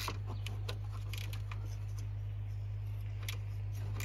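Ratcheting box-end wrench clicking irregularly as it turns the alternator mounting bolts, a few clicks in the first second and a half and a few more near the end, over a steady low hum.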